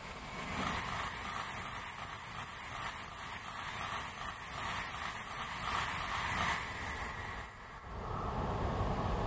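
N700-series Shinkansen bullet train running through the station at speed: a steady rush of wheel and air noise that drops away sharply about eight seconds in.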